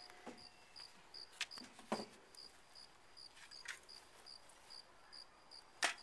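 A cricket chirping steadily, short high chirps about two and a half a second, with a few faint knocks and one sharp knock near the end.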